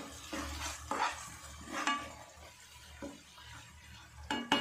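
Spatula stirring and scraping a thick onion-garlic masala around a nonstick frying pan, in about five separate strokes roughly a second apart.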